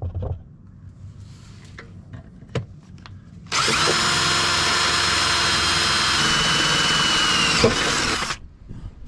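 Electric drill with a quarter-inch bit boring through a steel body pinch seam, starting about three and a half seconds in and running steadily for about five seconds; its whine drops slightly partway through. Before it, a few light clicks of handling.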